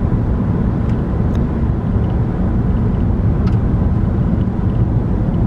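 Steady low rumble of tyre, road and engine noise inside the cabin of a car cruising on a freeway, with a few faint clicks.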